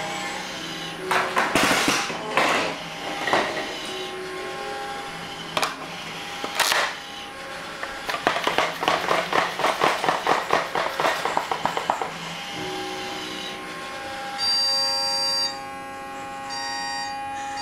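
Mechanical and electronic toy sounds: several sharp knocks, then a fast run of clicks for about four seconds, over steady electronic tones, with a higher tone coming and going near the end.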